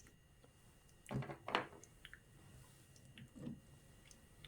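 Faint handling sounds of bolts, nuts and PVC pieces: two soft knocks close together about a second in, then a few light clicks.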